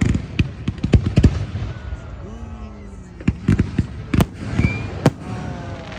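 Fireworks display: aerial shells bursting in quick clusters of sharp bangs, most tightly packed in the first second and a half and again in the second half.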